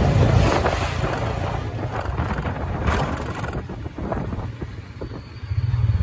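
Auto-rickshaw running along a road: its engine throbs with road rumble and rattles from the body. The engine sound drops away about four seconds in, then picks up again near the end.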